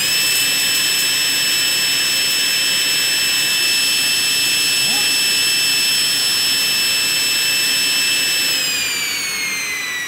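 Laguna Fusion F2 hybrid table saw running on its very first start-up: a loud, steady high-pitched whine from the motor and spinning blade at full speed. About eight and a half seconds in, the whine starts to fall steadily in pitch and gets quieter as the blade coasts down.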